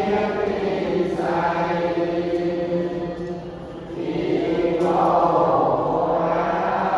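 A group of voices chanting a Buddhist chant together in long, held phrases, with brief breaks for breath about a second in and again about four seconds in.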